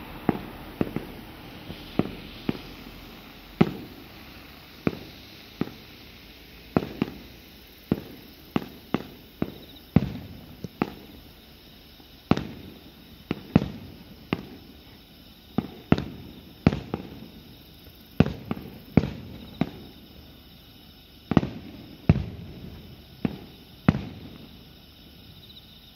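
Distant aerial firework shells bursting: a long, irregular string of sharp booms, about one or two a second, each followed by a rolling echo. The booms stop a little before the end.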